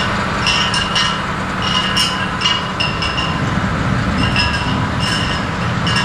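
Potato harvesting machinery running with a steady rumble, over which short, high metallic squeaks and clinks come at irregular intervals, about two a second.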